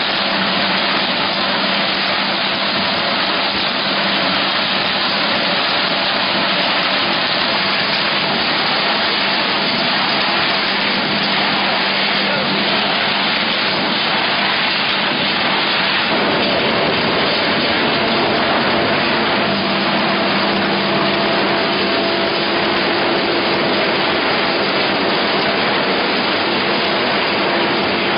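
Corrugated-carton rotary die cutting and stripping machinery running, a steady dense machine noise with a low hum. The hum shifts about sixteen seconds in.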